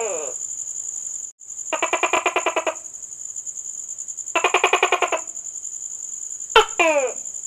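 Tokay gecko calling: two rapid rattling croaks of about a second each, then near the end a sharp click followed by a call falling in pitch. A steady high whine runs behind and drops out briefly about a second in.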